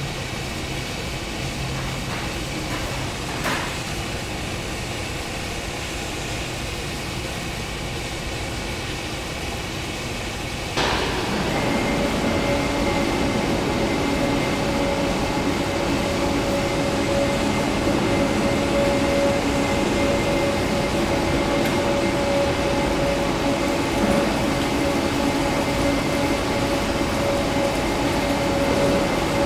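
Steady running noise of metalworking factory machinery. Once, a few seconds in, there is a single click. About eleven seconds in, the noise steps up sharply and stays louder, with a steady hum and a high whine on top.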